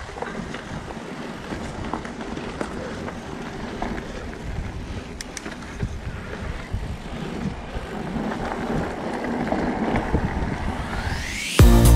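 Ride noise from an e-mountain bike on a trail: wind on the microphone, tyre rumble and small rattles. Near the end a rising whoosh leads into loud electronic dance music.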